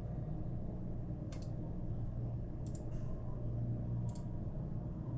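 Three sharp computer mouse clicks, spaced about a second and a half apart, over a steady low hum.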